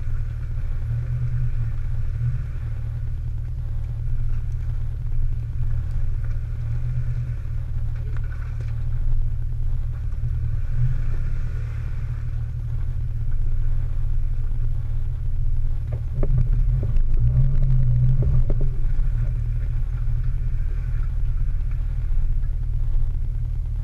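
Off-road 4x4 engine running in a low, steady rumble. About 16 seconds in it gets louder for a few seconds, with a few knocks, as the vehicle pulls over rough, rocky ground.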